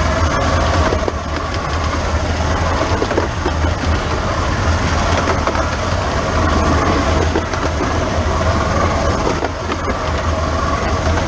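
15-inch-gauge steam locomotive 'The Bug' running along the line, heard close up from its injector pipe: a steady loud mechanical running noise with a deep rumble underneath and irregular sharp clicks of the wheels on the track.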